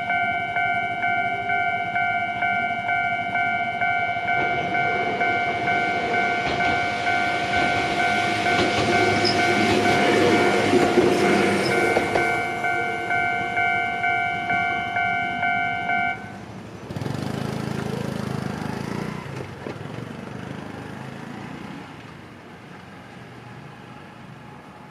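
A Japanese level-crossing warning bell rings in a steady, evenly pulsing pattern while a Gakunan Railway electric train passes over the crossing. The train's rumble swells to a peak and fades. The bell cuts off abruptly about 16 seconds in, a brief lower rumble follows, and the sound dies down.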